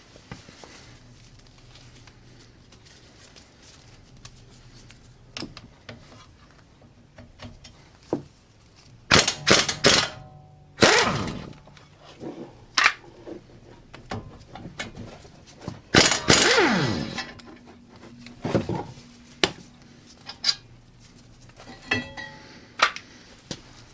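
Impact wrench undoing tight 21 mm brake pad carrier bolts: short bursts of hammering about nine to ten seconds in and again around sixteen seconds, each followed by a falling whine as the motor spins down. Clanks and knocks of tools and metal parts are heard between bursts.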